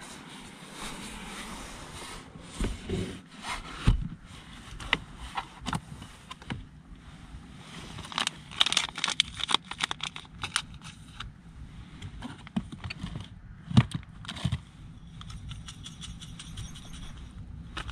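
Handling noise from rummaging in a plastic storage box of food: the hinged plastic lid clicking, packets rustling and items knocking against each other, with a rustling spell partway through and one louder knock later on.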